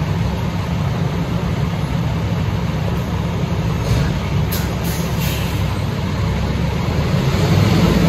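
Fire engine's diesel engine running steadily with a deep rumble in the station bay, with a few short hisses about four to five seconds in, and getting louder near the end as the truck pulls out.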